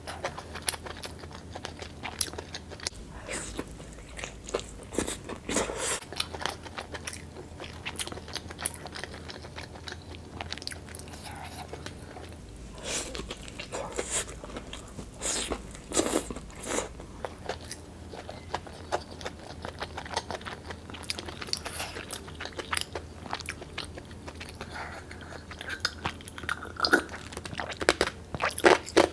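Close-miked chewing and biting of food, with irregular crunchy bites and wet mouth clicks.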